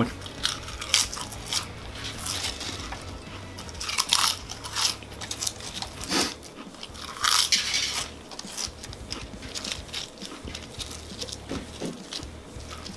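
Potato chips crunching as they are bitten and chewed, in irregular crackly bites with louder clusters about four and seven seconds in, along with the rattle of chips being picked from a pile on a platter.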